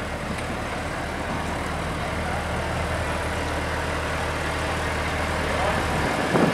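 Engine of a Portland replica cable tram running steadily as the tram rolls slowly past at close range, its low hum growing slightly louder. A brief louder sound breaks in near the end.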